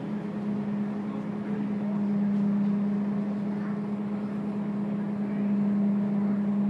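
Scania K230UB single-deck bus running, heard from inside the passenger cabin: a steady, unbroken hum with a noisy drone under it.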